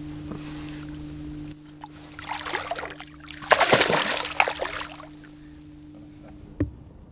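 A released bass thrashing at the surface and splashing the water as it swims off, with scattered splashes building to the loudest burst about three and a half seconds in. A steady low hum runs underneath at the start.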